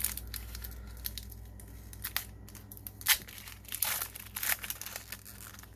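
Foil wrapper of a trading-card booster pack crinkling and being torn open by hand, in irregular crackles, the sharpest about three seconds in.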